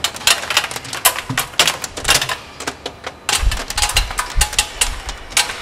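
Steel truck wheel bolts clattering on metal factory conveyor machinery: a dense, irregular run of metallic clinks and clicks, joined by heavier low thuds from about three seconds in.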